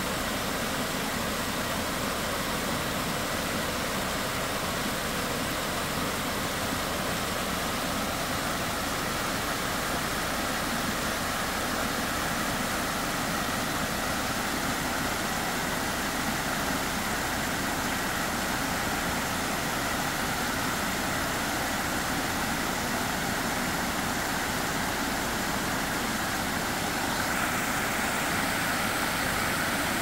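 Water rushing steadily over a reservoir spillway as the reservoir overflows, an even, unbroken roar of falling water.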